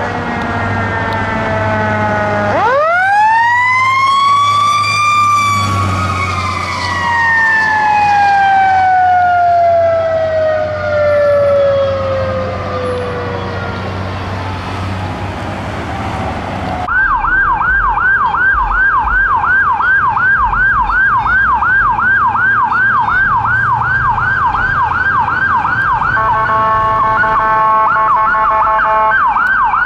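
Fire ladder truck responding: its siren rises quickly, then falls slowly over about ten seconds, over a low diesel engine hum. After a cut, an ambulance's electronic siren yelps at nearly three sweeps a second, with a steady horn blast over it near the end.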